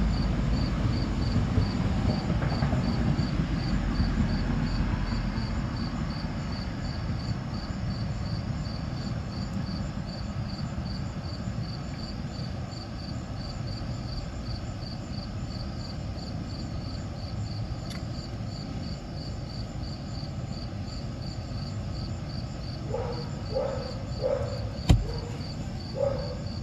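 A cricket chirping steadily, two to three high chirps a second, over a low rumble. Near the end a dog barks several times, with a sharp click just before the last barks.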